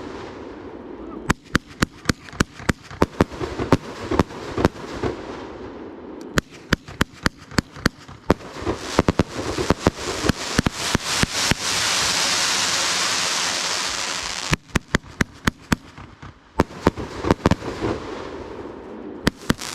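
Fireworks going off in rapid runs of sharp pops and crackles. About two-thirds of the way through, a loud steady hiss holds for a few seconds and then cuts off suddenly, and the pops resume.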